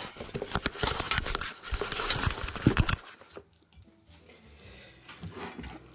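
Close handling noise from an action camera being picked up and repositioned: rubbing and knocks right against the microphone, which cut off abruptly about halfway. After that it is much quieter, with faint steady low tones.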